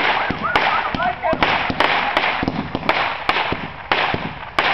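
Fireworks going off in quick, irregular succession: a string of sharp bangs and cracks, two or three a second, over continuous crackling hiss.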